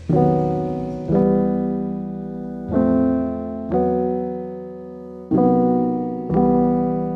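Background piano music: chords struck in pairs about a second apart, each ringing out and fading before the next pair.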